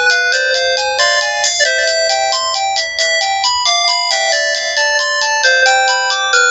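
Sanex SC-7090i phone playing a polyphonic ringtone on its CMX sound synthesizer: a quick melody of bright synthesized notes in several voices at once, the notes changing several times a second.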